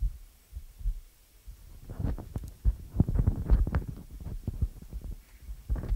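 Handheld microphone being handled and passed from one person to another: irregular low thumps and rubbing noise, densest about two to four seconds in.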